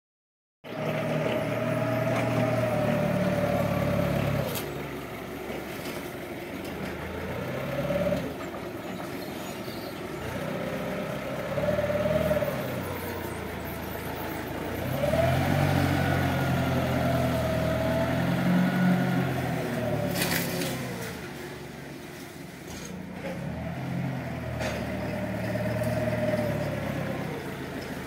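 Linde diesel forklift engine running and revving up and down repeatedly as the truck manoeuvres and lifts, with a whine that rises and falls along with the revs. There are two sharp knocks, one about four and a half seconds in and one around twenty seconds in.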